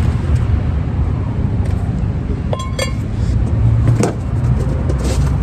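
A few sharp metallic clinks, one with a brief ring, as brake parts are handled, over a steady low rumble.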